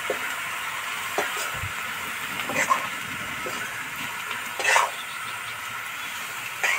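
Ash gourd pieces sizzling in oil in a kadai, with a metal spatula scraping against the pan about five times as they are stirred.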